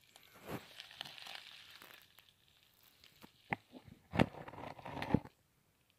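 Faint handling noise as a plastic gold pan is held and tilted close up: light rustling with scattered sharp clicks and knocks, the loudest a little past halfway, dying away to near silence near the end.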